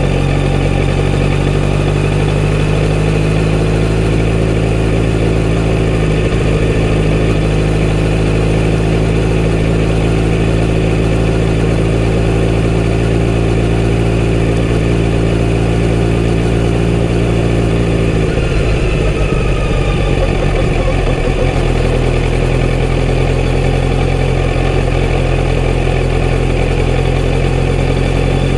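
Kawasaki Z900RS 948 cc inline-four engine running at steady low revs through its full-system exhaust while the motorcycle rolls along. About two-thirds of the way through, the steady note breaks up and shifts for a few seconds before settling again.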